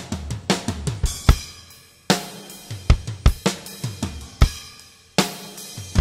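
Acoustic drum kit played solo: snare, tom and bass drum strokes, with a cymbal crash about two seconds in and another near five seconds in, each ringing out and fading under the drum hits.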